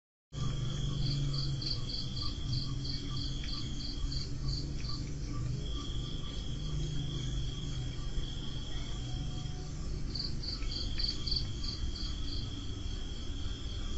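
Night chorus of crickets starting abruptly just after the start: a steady high trill that runs in long stretches with short breaks, with a separate series of quick chirps, about three to four a second, laid over it twice. A low rumble sits beneath.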